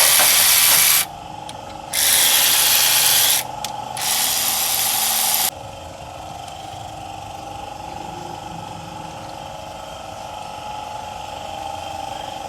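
Three loud hissing bursts of compressed air from a workshop air line, each a second or so long and cut off sharply, then a quieter steady hum.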